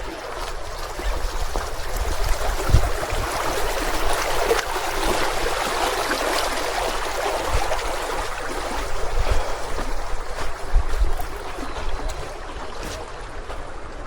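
Running water of a stream, a steady rush that grows louder through the middle and eases toward the end, with scattered low thumps.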